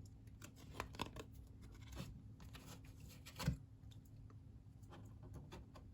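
Faint rustling and light ticks of cardboard trading cards being handled, with one louder tap about three and a half seconds in.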